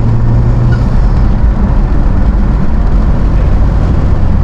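2021 Honda Civic Type R's turbocharged 2.0-litre four-cylinder running steadily under way with a PRL high-volume intake fitted, heard through an open window over heavy wind noise.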